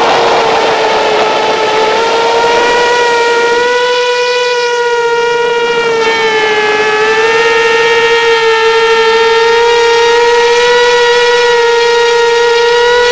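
Nine-inch FPV quadcopter's motors and propellers running with a steady high whine that wavers slightly in pitch.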